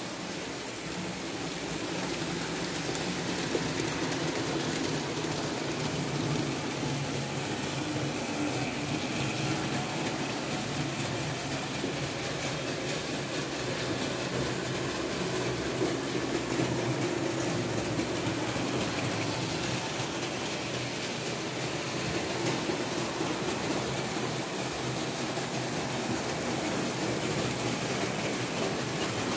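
H0-scale Märklin model train running on the track: a steady hum of the locomotive's electric motor with the rumble of wheels rolling over the metal rails, growing a little louder over the first couple of seconds.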